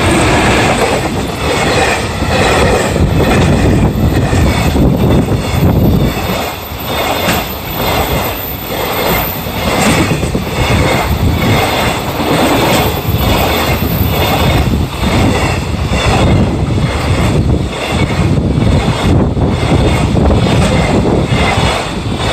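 Freight train hauled by an EF210 electric locomotive running past close by, its wagon wheels clacking in a steady, even rhythm over the rail joints, loud throughout.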